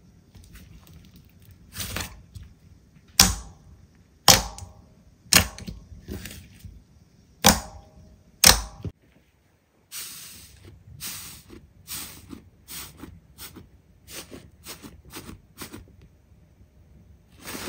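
Slime being squeezed and pressed by hand, giving a run of sharp, loud pops and clicks about one a second. After a short break, a quicker series of softer crackling clicks follows, about two a second.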